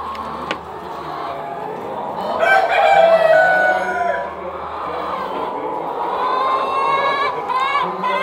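Chickens calling: a long, loud, drawn-out call starting about two seconds in, then more long calls building toward the end.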